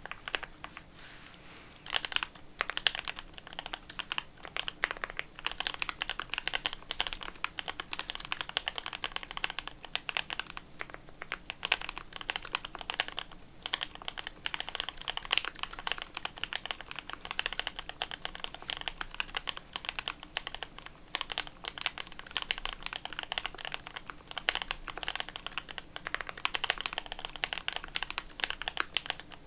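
Typing on a custom mechanical keyboard with lubed Gateron Ink Black linear switches, a top-mounted polycarbonate plate, plate and case foam, and GMK ABS keycaps: fast, steady keystrokes. The typing starts about two seconds in, with a few brief pauses.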